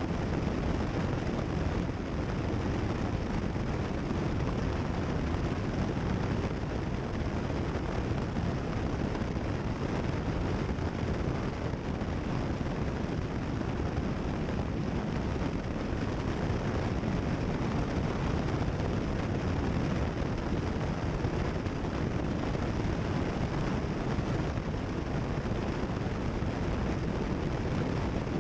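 Cessna 172 Skyhawk's piston engine and propeller running steadily at takeoff power during the takeoff and initial climb, heard from inside the cockpit.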